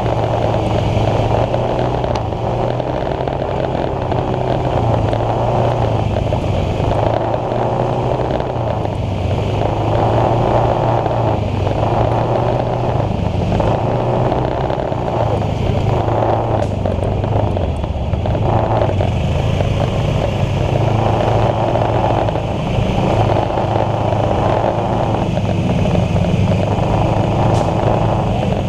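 Motor scooter riding slowly in street traffic: its small engine runs steadily, its pitch rising and falling slightly with the throttle, over a continuous noisy rush.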